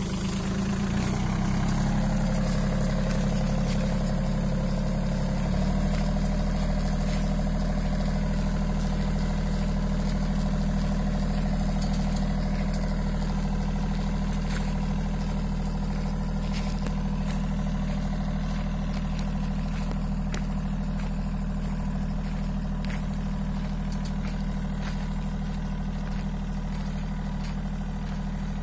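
Tractor engine running steadily while driving a mounted boom sprayer that is spraying. The engine note shifts slightly twice in the first six seconds, then holds.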